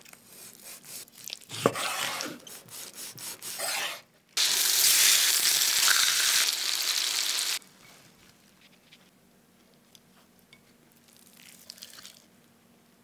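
A knife cutting through a crusty browned pork roast, with dense crackling and one sharp crack about two seconds in. Pork slices then sizzle loudly in a hot pan for about three seconds and stop abruptly, followed by faint handling sounds.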